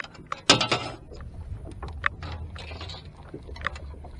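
Scattered clicks and knocks of gear being handled aboard a fishing boat, with a brief rush of noise about half a second in and a low steady hum underneath.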